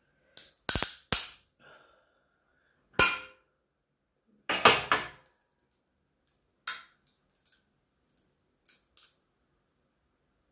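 Cooked king crab shell being cracked and snapped apart by hand: a run of sharp cracks, loudest about three seconds in and in a cluster about five seconds in, then a few fainter clicks.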